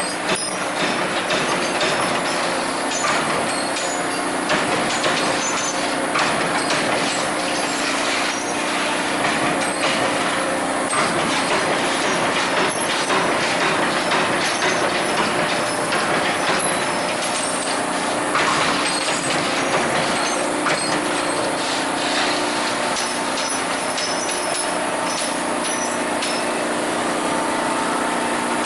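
Amada Vipros King 368 II 33-ton CNC turret punch press running: a rapid, continuous clatter of punch strokes through sheet metal over a steady machine hum.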